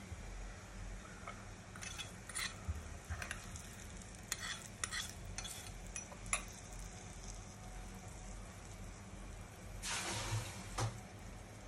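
Tadka of hing and red chili flakes sizzling softly in hot oil in a small pan, with scattered light clicks of a spoon stirring against the pan. About ten seconds in, the sizzle briefly gets louder.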